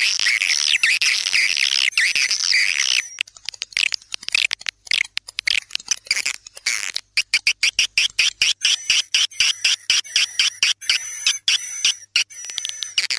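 Swiftlet lure call track ('tarik senja', the dusk pull sound played to draw swiftlets into a nesting house): swiftlet chirping and twittering, dense for about three seconds. It then breaks into rapid, evenly spaced clicking chirps, about four a second, with thin high whistles over them.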